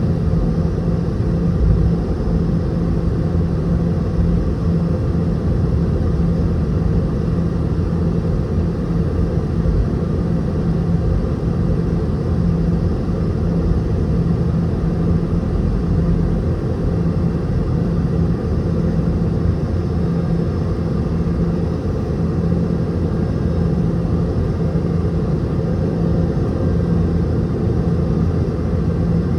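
Inside the cabin of a Boeing 717-200, near the rear: the tail-mounted Rolls-Royce BR715 engines running steadily, a low rumble with a constant hum and no rise in power.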